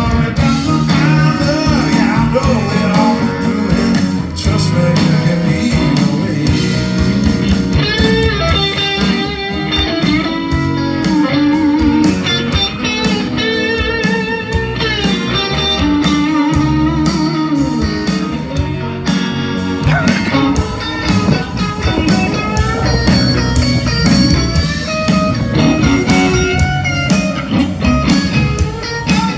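Live blues rock band playing: electric guitars over bass guitar and drums, with a lead electric guitar line of bent, wavering notes.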